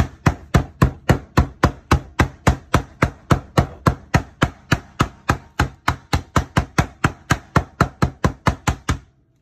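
Metal meat-tenderizer mallet pounding Takis chips in a plastic bag on a plastic cutting board: a steady run of about four blows a second that stops about nine seconds in. The chips are being crushed down toward a fine powder.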